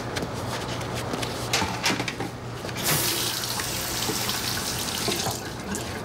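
Water running from a tap for about two and a half seconds, starting abruptly about halfway through, after a few light knocks.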